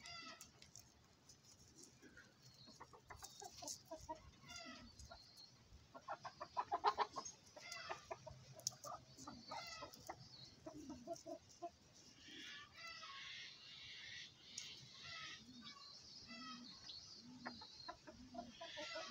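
Chicken clucking, with a loud rapid run of clucks about six to seven seconds in, against many short high chirps.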